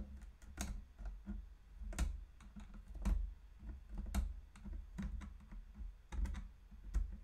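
Irregular light clicks and scrapes of a thin metal tool picking inside a 3D-printed plastic prop-rifle receiver, working loose a bit of plastic stuck in a hole, with dull low knocks as the part is handled.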